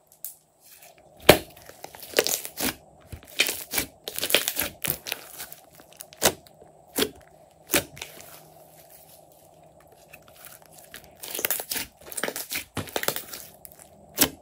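A large mass of thick slime squeezed and kneaded by hand, giving irregular crackles and pops of trapped air. The pops come in dense clusters with a few single ones between and a quieter stretch near the middle.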